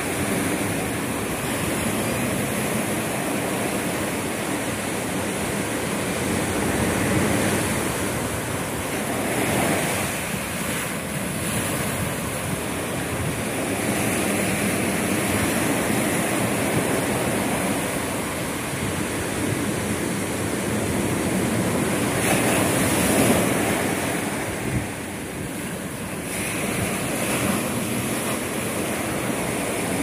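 Sea surf washing in over shoreline rocks: a continuous rushing wash that swells several times as waves break and foam among the boulders.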